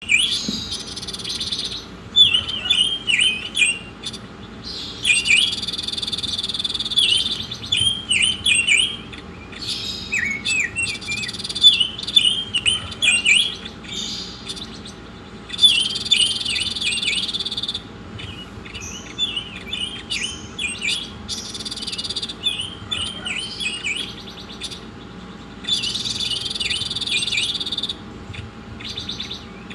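A songbird sings a masteran (song-tutoring) recording: runs of short, quick chirping notes, broken every few seconds by stretches of a steady, high buzzing trill lasting two or three seconds.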